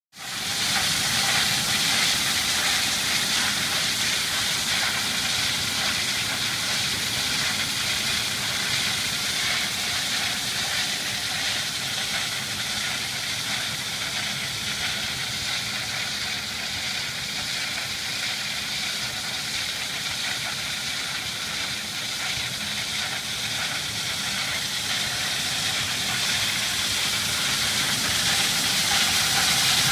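Diamond wire saw, an old slurry wire saw converted to diamond wire, running through a granite block: a steady hissing grind that grows somewhat louder over the last few seconds.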